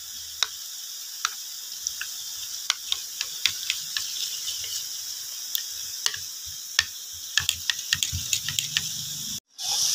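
Metal spoon stirring mashed boiled egg yolk and a little water into a paste in a ceramic dish, clicking and scraping against the dish at irregular moments over a steady hiss.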